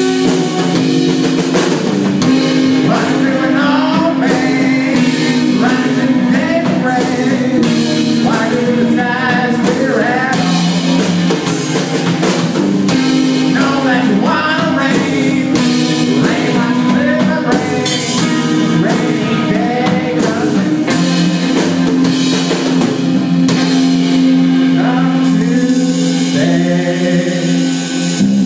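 Live rock band playing: electric guitars and a drum kit, with long held low notes under a melody line that slides in pitch.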